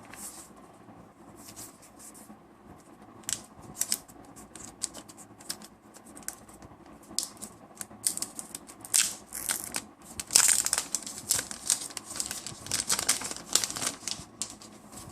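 Plastic packaging crinkling and tearing as it is pulled open by hand, in scattered crackles at first, growing denser and louder in the second half.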